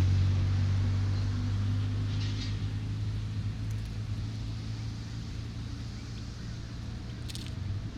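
A road vehicle's low engine hum, steady in pitch and gradually fading away over several seconds. A brief faint tick comes near the end.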